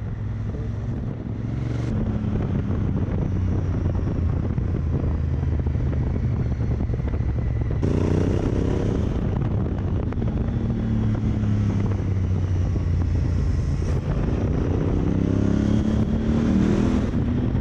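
2018 Yamaha YZF-R1's crossplane inline-four engine running, its pitch climbing sharply about halfway through, sinking again, then rising once more near the end.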